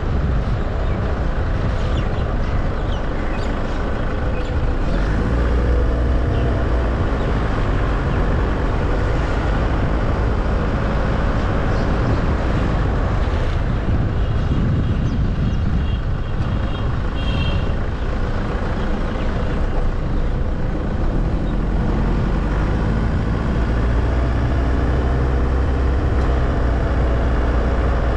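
Car driving at steady speed: continuous low engine and tyre rumble from the road, with a few brief high-pitched tones around the middle.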